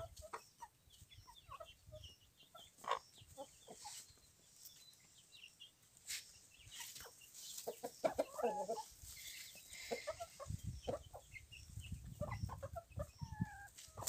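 Free-range chickens clucking softly, short scattered calls, with a few small knocks and rustles mixed in.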